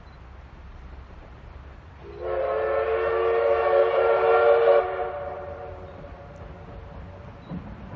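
Steam locomotive whistle, one long blast of nearly three seconds starting about two seconds in, swelling slightly before it cuts off and rings on faintly for a moment. Its source is the C58 363 locomotive that hauls the Paleo Express.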